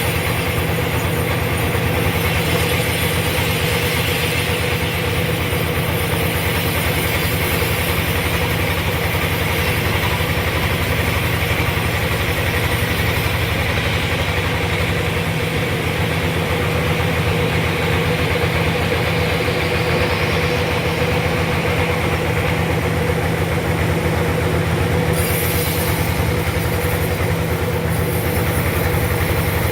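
Sawmill running steadily as it saws a large trembesi log into boards, a continuous heavy machine drone with a low hum and a steady mid-pitched tone.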